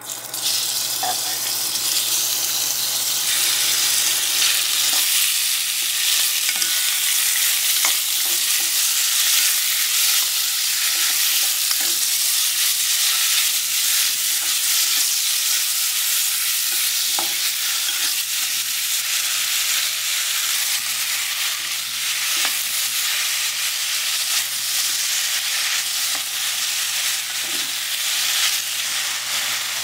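Cubed pork belly sizzling in hot oil in a pot while being stirred with a wooden spatula. The sizzle starts suddenly as the meat drops into the oil, then holds steady with occasional light taps of the spatula.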